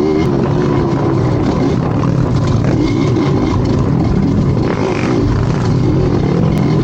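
A motor vehicle's engine running hard under a close microphone, its revs rising and falling continually as it is driven.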